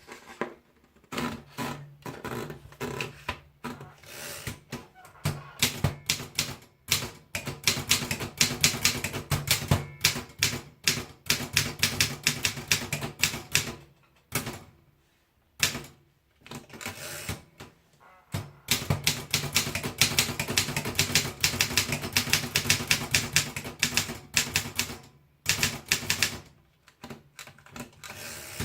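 Typing on a Continental 350 typewriter: fast runs of key strikes, broken by a few short pauses.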